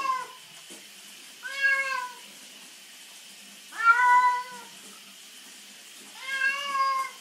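Domestic cat meowing in protest while being held and washed in a bath: the end of one call, then three long, drawn-out meows about two and a half seconds apart.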